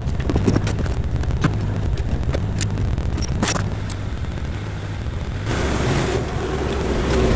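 Kubota KX040-4 compact excavator's diesel engine running with a steady low rumble, with sharp clicks and clanks in the first few seconds. About five and a half seconds in, a hiss and a faint steady whine join as the boom and mulcher move.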